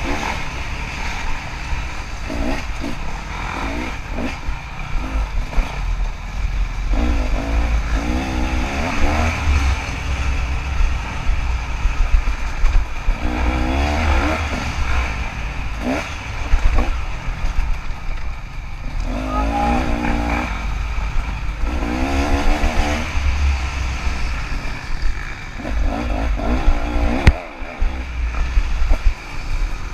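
KTM 300 two-stroke dirt bike engine revving up and down again and again under race riding, over a heavy low rumble, with a few sharp knocks.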